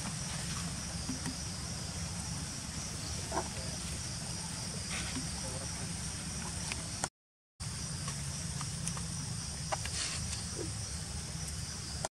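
Steady high-pitched insect chorus of crickets or cicadas, over a low background rumble; the sound cuts out completely for about half a second around seven seconds in.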